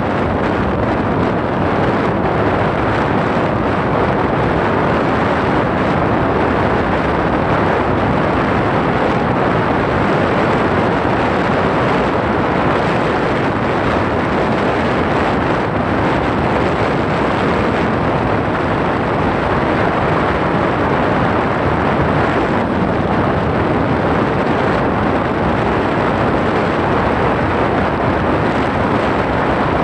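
Steady, loud rushing noise that never pauses or changes.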